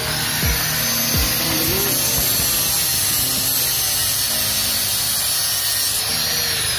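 Hand-held angle grinder spinning up and cutting into a small piece of steel: a steady high whine with grinding noise, falling in pitch near the end.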